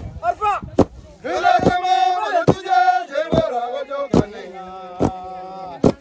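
Men threshing harvested grain by beating the stalks on the ground with long-handled wooden flails, all striking together: a sharp whack about every 0.85 seconds, eight in all. From about a second in, men's voices chant along over the beats.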